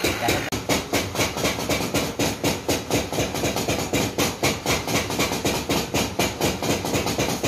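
Background music with a steady, fast percussive beat.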